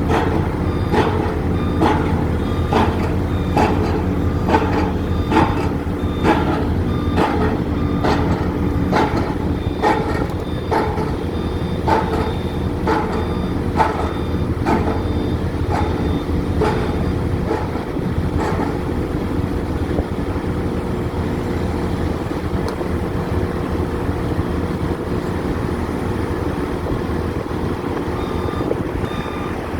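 Heavy crane's diesel engine running steadily under work, with a warning alarm beeping rapidly, about twice a second, that stops about two-thirds of the way through.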